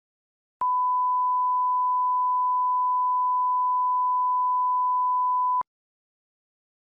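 Censor bleep: a steady 1 kHz beep held for about five seconds, starting and cutting off abruptly.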